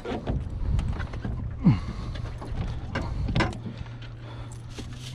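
A plastic marine cooler's lid being lifted open, with knocks and clatter of handling and one short squeak falling in pitch about two seconds in, over a steady low hum.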